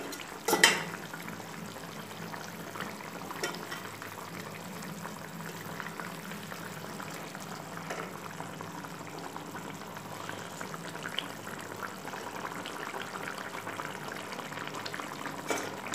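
Fish curry gravy boiling hard in a kadai over a high gas flame: a steady bubbling hiss. There is one sharp knock about half a second in and a few lighter clicks later, as fried fish pieces are laid into the pan.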